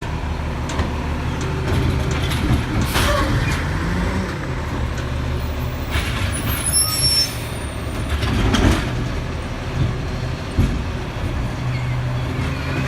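A large engine running steadily, with a few short bursts of hiss about three, seven and nine seconds in.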